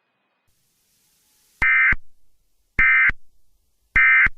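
Emergency Alert System end-of-message data bursts: three short, loud, buzzy digital squawks about 1.2 seconds apart, signalling that the alert has ended.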